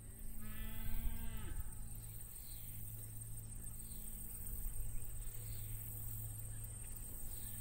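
A cow moos once, one long call of about a second and a half near the start. A low rumble of wind on unshielded microphones runs underneath.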